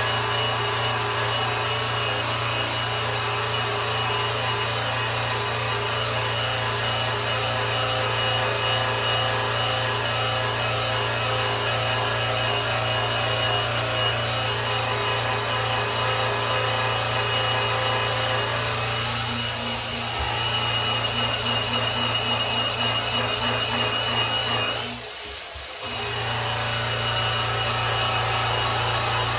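Electric polisher running steadily while buffing a grand piano's finish, a constant motor hum with the pad rubbing on the surface. It cuts out for about a second near the end and then starts up again.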